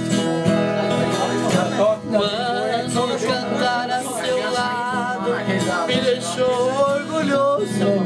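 Acoustic guitar strummed in a steady rhythm, with a man's voice singing a long, wavering melody over it from about two seconds in.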